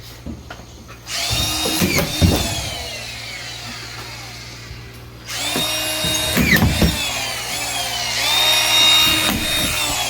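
Cordless power drill running in two bursts, a shorter one about a second in and a longer one from about five seconds, its whine changing pitch as it drives into timber.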